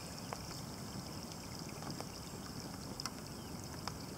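Scattered raindrops plinking onto a calm river surface, a few separate drops over a few seconds, over a steady low rumble of wind on the microphone.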